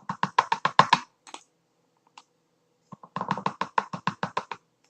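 Two quick runs of light, sharp clicking taps, about ten a second, one at the start and one from about three seconds in, with a pause between.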